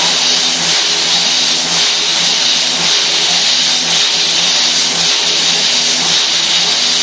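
Haas CNC mill high-speed milling 1018 steel with an Iscar carbide end mill, the spindle at over 11,000 rpm: a loud, steady, high-pitched cutting noise with a lower tone that rises and falls as the tool moves through the cut.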